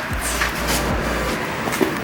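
Background music with a deep bass line: held low bass notes that change pitch, with a short falling bass glide near the start and again about a second in.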